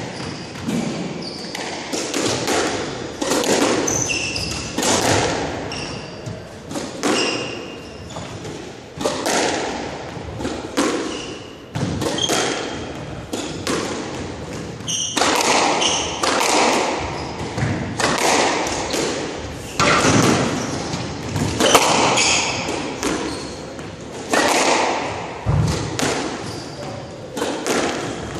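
Squash rally: the ball cracking off racquets and slapping against the court walls in hard impacts about a second apart, with short squeaks of court shoes on the hardwood floor in between.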